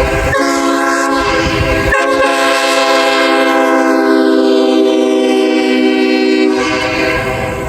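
Nathan Airchime K5HLA five-chime train air horn sounding a loud, steady chord. It breaks off twice very briefly in the first two seconds, then holds until it stops about a second before the end.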